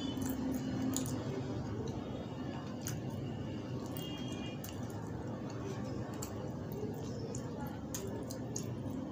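Fingers scooping soft food off a ceramic plate by hand: wet squishing with a few light clicks against the plate, over a steady low background noise.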